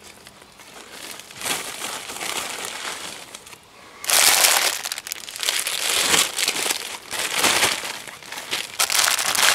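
Clear plastic bags of packaged paracord bracelets crinkling as a hand shuffles and spreads the packs, soft at first and louder from about four seconds in.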